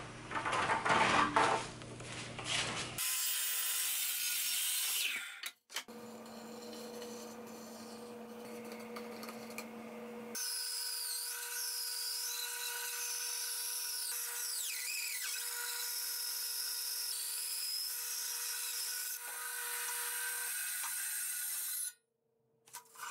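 Woodshop sounds in short cut-together segments, the longest a band saw resawing a walnut board on edge: a steady machine hum with a higher whine that wavers in pitch as the blade cuts. The sound drops away near the end.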